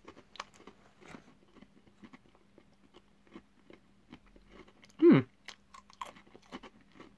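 Someone chewing crunchy baked salted pretzel rings, a run of small crisp crunches. About five seconds in comes a short hum from the voice, falling in pitch.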